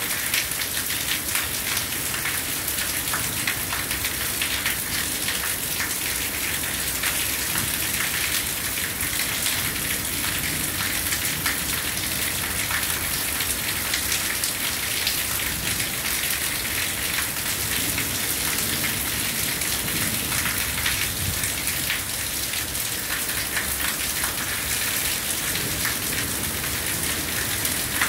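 Steady heavy rain: a dense, even hiss of falling drops, with many small drop impacts close by.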